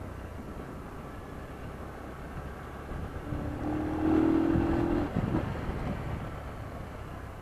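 Motorcycle engine running in slow city traffic, with a steady low rumble; about three seconds in, a louder steady tone comes up for about two seconds, then fades.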